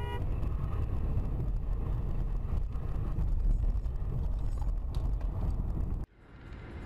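A moving car's steady low road and engine rumble with wind noise, cutting off abruptly about six seconds in. There is a short beep right at the start.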